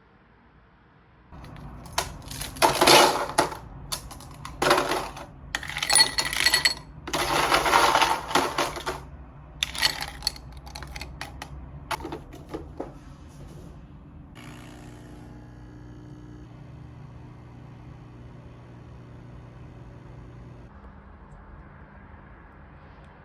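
A run of clattering and rustling handling noises with sharp clicks, then a steady appliance-like hum.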